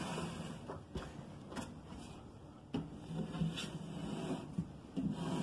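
Household handling sounds at a doorway: a door moving, a few light knocks, and shuffling as a child scrambles across a rug.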